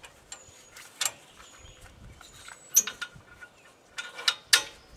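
Several sharp metallic clicks and clinks of steel lock pins and hitch hardware being fitted onto the lift pins of a three-point-hitch log skidder. The loudest is a short ringing clink near the middle.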